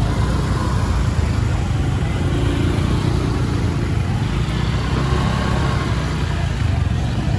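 Steady low rumble of motor vehicle traffic running.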